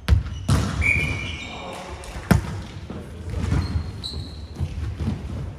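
A ball thudding against a hard court floor several times, with short shoe squeaks, in a large echoing hall, with voices in the background.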